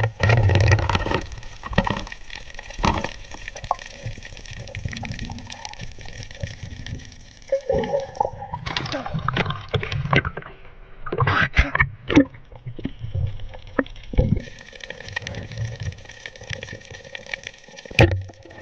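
Underwater sound picked up by a diver's camera: muffled water noise and gurgling, with scattered clicks and knocks and one sharp click near the end.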